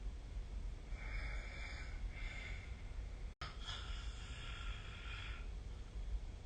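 A sleeping person's snoring breaths: two short breaths, then a brief total dropout about three seconds in, then one longer breath of nearly two seconds, over a steady low hum.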